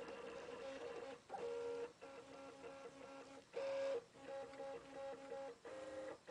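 Stepper motors of a RepRap-style 3D printer whining as the print head and bed make moves, in short pitched tones that change pitch from one move to the next, with brief gaps between moves.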